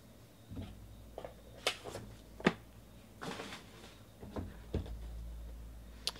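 Light handling noises of a plastic graded-card slab and card boxes on a table: a few soft taps and clicks, with a brief rustle about three seconds in.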